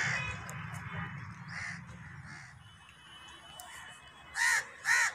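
Crows cawing: a few fainter caws, then two loud caws in quick succession near the end.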